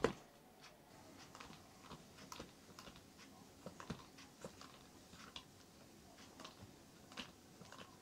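A cat's paw knocking a toy frog on a cord, a sharp knock right at the start, then faint light clicks and taps scattered through, a few a second.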